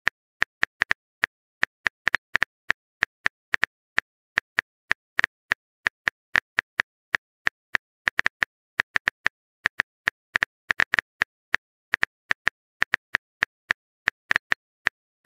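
Phone keyboard typing sound effect: short, identical tapping clicks at an uneven pace of about four a second, with silence between them.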